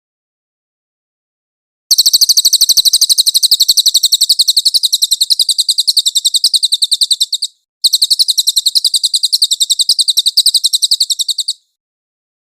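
Cililin bird singing: a fast trill of evenly repeated high, sharp notes that starts about two seconds in, breaks off briefly, and resumes as a second run before stopping near the end.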